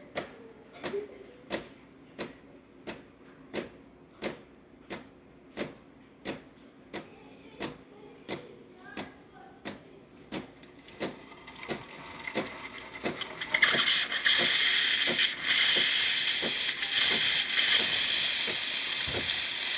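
DeLonghi Magnifica espresso machine ticking steadily, about one and a half clicks a second, as it readies steam. About thirteen seconds in, its steam wand opens with a strong, loud hiss.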